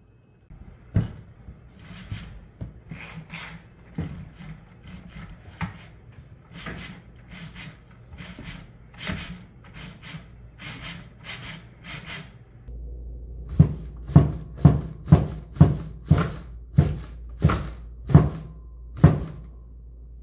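Motor-driven robot leg being pushed around by hand: irregular clicks and knocks from its joints and linkages over a low steady hum. After about twelve seconds the hum gets louder and about ten sharp knocks follow, roughly two a second, spacing out toward the end.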